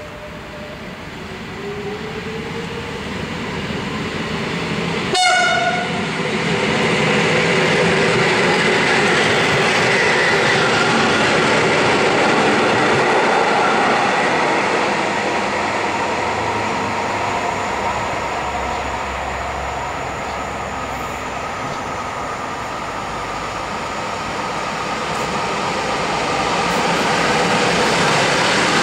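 An EN57-type electric multiple unit running in along the platform, its rising whine and wheel-on-rail noise growing louder. A short horn blast about five seconds in is the loudest moment.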